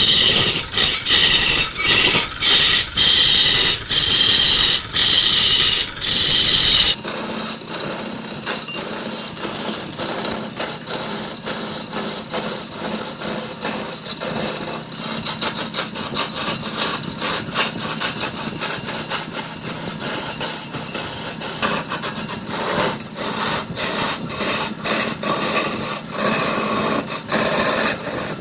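Wood being cut on a large wood lathe: a turning tool scraping and chattering against the spinning wood in quick, uneven strokes. The sound changes abruptly about seven seconds in and becomes brighter and more hissing.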